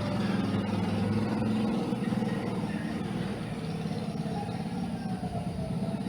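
A sleeping girl snoring: a low, fluttering rattle in the throat, loudest in the first couple of seconds and then carrying on a little weaker.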